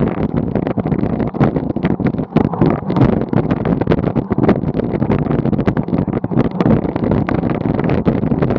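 Wind buffeting the microphone of a camera mounted on a moving vehicle, a loud, steady rushing with constant crackles and pops.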